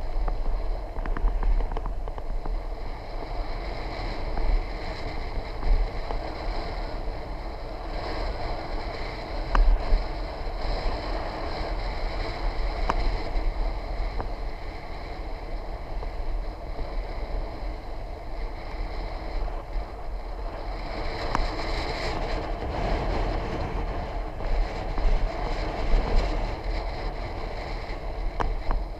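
Wind buffeting the microphone and road noise from a moving bicycle, with a faint steady high whine running through it.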